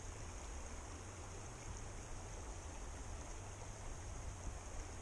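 Steady rush of a shallow, rocky river, with wind buffeting the microphone in a low, fluttering rumble.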